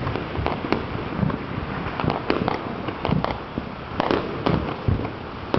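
Fireworks going off across the city below: an irregular string of bangs and pops, several a second, with some louder reports.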